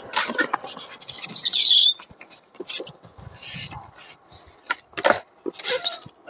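Skateboard on concrete: sharp clacks of the board hitting the ground and a loud scrape of the board sliding, about a second and a half in, with shorter rolling and scuffing sounds and another hard clack near the end.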